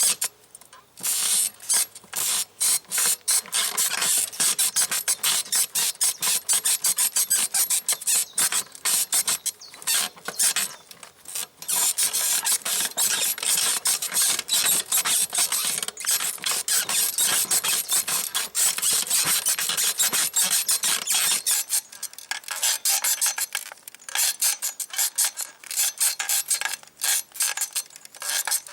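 Springs of a 1970s sprung bicycle saddle squeaking under someone bouncing on it, in a fast, dense run of squeaks with a few brief pauses.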